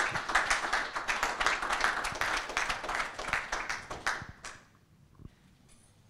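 Audience applauding at the end of a talk; the clapping thins out and dies away about four and a half seconds in.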